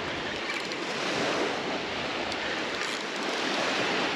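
Small Gulf surf breaking and washing up the sand at the shoreline: a steady hiss of moving water.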